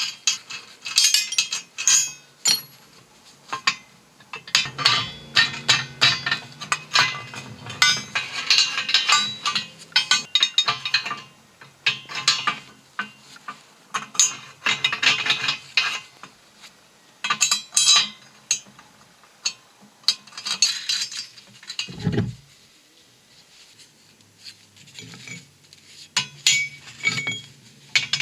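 Steel parts of a 6-ton hydraulic shop press clinking and clanking as they are handled while the press height is adjusted: irregular metal knocks and rattles, with a quieter stretch of a few seconds near the end.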